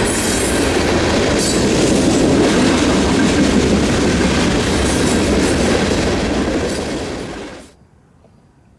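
Freight train cars rolling past at speed, wheels running on the rails in a steady loud noise that cuts off suddenly near the end.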